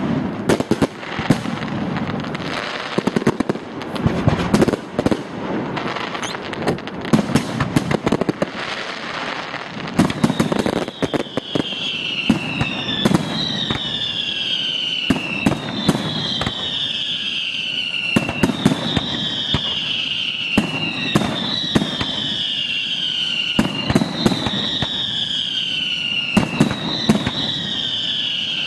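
Aerial fireworks going off: a dense barrage of bangs and crackle for about the first ten seconds. After that comes a run of high whistles, each falling in pitch, about every two seconds, with shell bursts banging between them.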